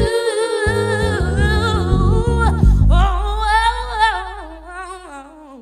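Outro of a late-1990s hip-hop track: sung vocals over a bass-heavy beat. About three seconds in the beat stops, leaving a fading bass note, and the singing trails off and fades out.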